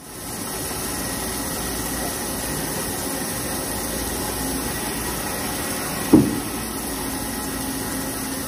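Okuma MC-50VA CNC vertical machining center face-milling a metal plate under coolant spray: steady spindle and cutting noise with a faint high whine. A single sharp knock about six seconds in.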